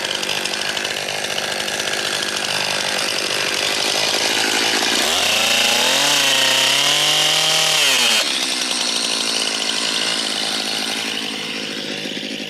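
Stihl MS 271 two-stroke chainsaw running steadily, with its engine note rising and then dropping again over a few seconds in the middle.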